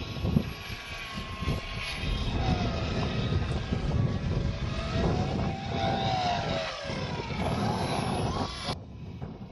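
Electric motor and propeller of a small E-starter R/C plane whining overhead, its pitch gliding up and down as it flies, over heavy wind buffeting on the microphone. The whine cuts off suddenly near the end.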